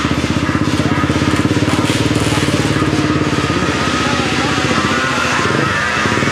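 Two racing quad (ATV) engines running loud at the start line, then accelerating hard as the quads launch down the sand drag strip about four to five seconds in.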